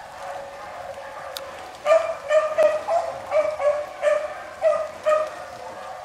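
A beagle baying as it runs a rabbit's track: faint at first, then from about two seconds in a quick run of loud, short bay notes, about three a second. The baying is the sign that the hound is on the rabbit's scent.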